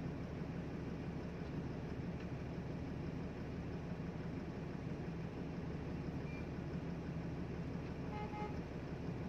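Steady low engine rumble of heavy diesel machinery, with a brief faint high tone about eight seconds in.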